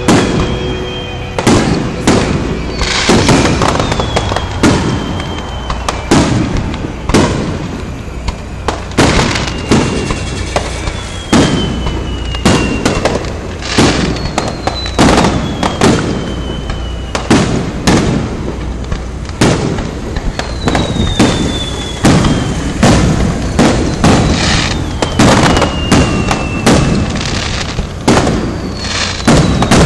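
Aerial firework shells bursting in quick succession, sharp booms every second or so, with whistles that slide down in pitch sounding again and again between them.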